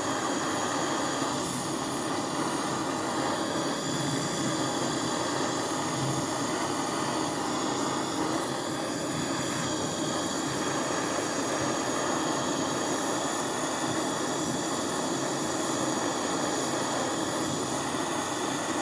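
Two gas soldering torches burning with a steady hissing roar, heating a large silver piece up to soldering temperature.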